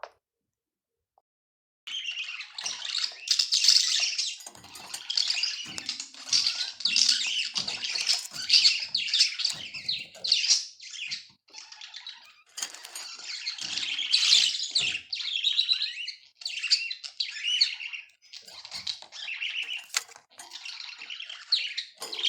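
Budgerigar warbling and chattering: a fast, continuous run of chirps and squeaky trills that starts about two seconds in and carries on with only brief pauses.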